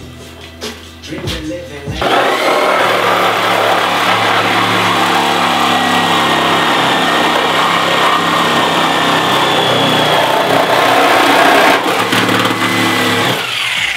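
DeWalt reciprocating saw cutting through the sheet-steel sill of a Mazda Miata body. After a few light knocks, about two seconds in the saw runs hard at full speed with a steady whine. It winds down, falling in pitch, near the end.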